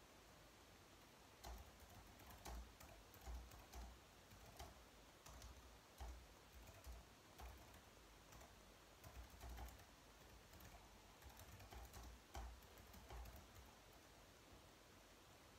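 Faint typing on a slim low-profile computer keyboard: irregular runs of light key clicks with short pauses, starting about a second and a half in and stopping near the end.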